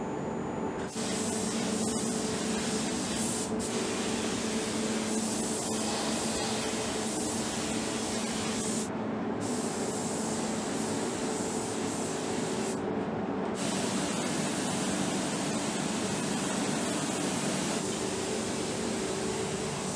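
Compressed-air paint spray gun hissing as a coat is sprayed onto a car body panel, with the spray stopping briefly twice when the trigger is let off, over a steady low hum.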